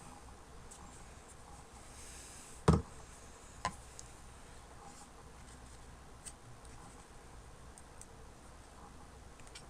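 Quiet room with a sharp knock about three seconds in and a lighter one a second later, plus a few faint clicks: small hard objects being handled and set down.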